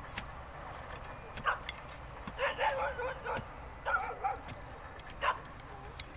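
Iron digging bar chopping into dry earth and grass roots, with faint clicking strikes throughout, while a dog barks and yelps several times, loudest between about two and three and a half seconds in.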